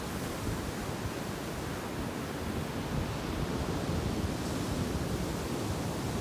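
Sea waves washing onto a beach, a steady wash of surf that swells slightly in loudness, with some wind on the microphone.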